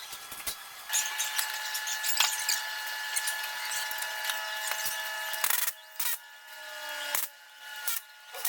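Handheld power tool, such as a drill, running steadily for about four and a half seconds and then stopping, followed by a few short knocks.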